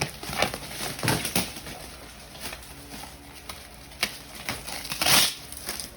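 Cardboard box being opened with a box cutter: scattered scrapes, taps and knocks, and a short rasping tear about five seconds in.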